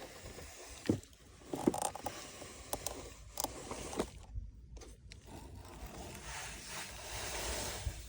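Plastic toys scraping and rustling through sand, with several sharp clicks in the first half and a steadier hiss of sand near the end.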